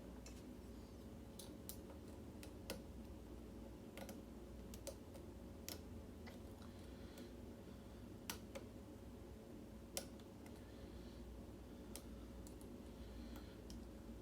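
Hook pick and tension wrench working the pins of a Schlage mortise cylinder: faint, irregular metallic clicks, about ten sharp ticks spread across the stretch over a low steady hum.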